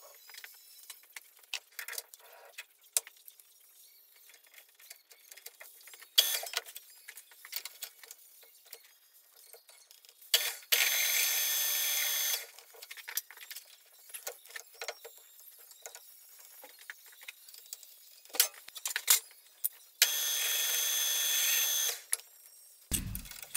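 Metal lathe drilling into a steel workpiece from the tailstock: two stretches of steady cutting noise with a high whine, one starting about ten seconds in and one near twenty seconds, the first from a twist drill boring the centre hole. Between them come scattered clicks and clatter of metal parts being handled.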